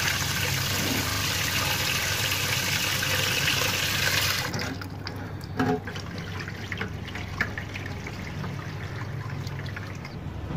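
Kitchen tap running into a pan of water in a sink, the stream splashing off a hand held under it, for about four and a half seconds before it is shut off. After that come a few faint knocks and a louder clunk of the pan being handled.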